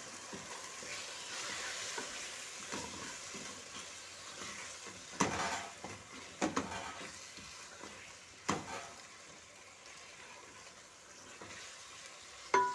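Meat and spices sizzling in a large cooking pot (sufuria) as they are stirred, with a spoon knocking sharply against the pot four times.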